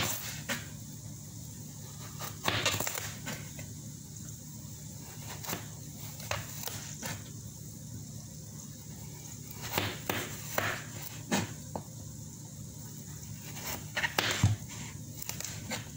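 Kitchen knife cutting raw carrots lengthwise on a plastic cutting board: irregular crunches and knocks of the blade on the board, in clusters every second or two, over a steady low hum. The carrots are hard, and the cook calls the knife dull.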